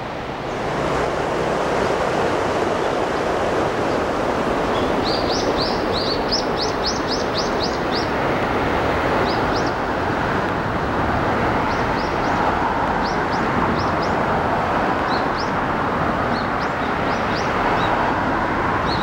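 Small birds chirping, with a quick run of chirps about five seconds in and scattered ones after, over a steady rushing noise that swells up in the first second.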